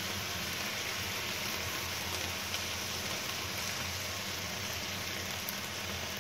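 Chicken strips frying in a pan, sizzling with a steady, even hiss as cooking cream is poured over them.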